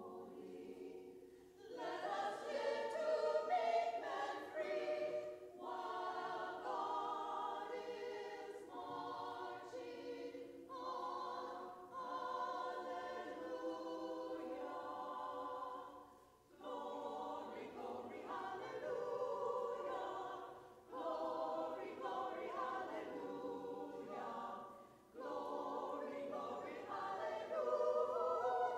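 Women's choir singing in harmony, phrase by phrase with short breaks between phrases.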